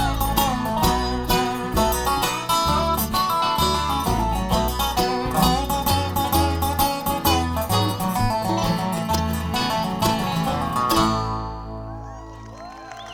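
Bluegrass band playing the instrumental close of a song: fast picked banjo and acoustic guitar over a steady bass line. The band stops about eleven seconds in, and the last chord rings on and fades.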